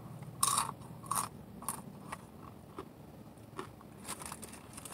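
Crunching bites and chewing of a crispy fried taco shell from Burger King, a string of short sharp crunches spread over a few seconds.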